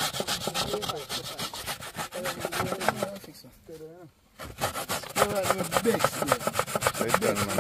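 Coconut flesh being grated on a metal box grater over a steel bowl: fast, repeated rasping strokes, with a short pause around the middle.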